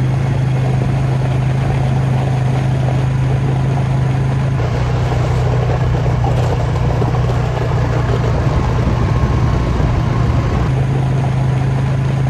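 Polaris ATV engine running at a steady speed, a constant low drone. About four and a half seconds in, it turns to a heavier, noisier rumble for some six seconds, then goes back to the steadier drone.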